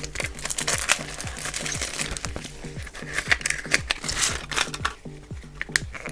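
Background music with a steady beat, over the crinkling and rustling of toy packaging being handled.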